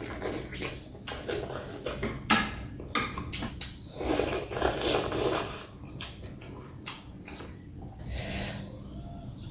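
Close-miked eating sounds: wet chewing and mouth smacks as sardine noodle soup is eaten, with a longer slurp from the bowl about four seconds in.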